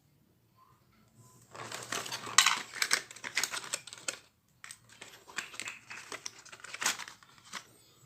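Plastic packaging crinkling as a small handheld nano spray mister is handled and unwrapped, followed by a string of separate sharp clicks and taps.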